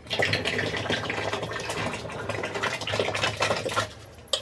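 Thick gram-flour and jaggery solution poured from an aluminium pot into a plastic drum: a steady splashing pour that stops about four seconds in.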